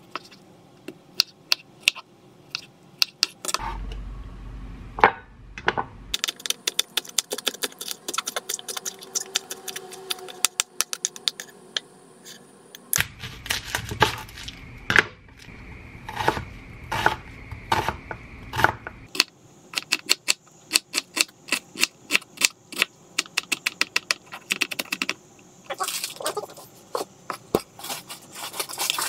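Kitchen knife chopping tomatoes and onion on a wooden cutting board: sharp knocks of the blade on the board, scattered at first and then in fast runs of several strokes a second. A low hum comes and goes twice.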